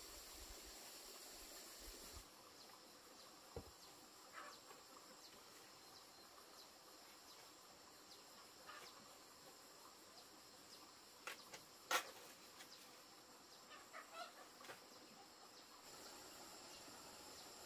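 Quiet rural ambience: a faint, steady high insect drone with a few short, distant chicken calls scattered through it, and one sharp click about twelve seconds in.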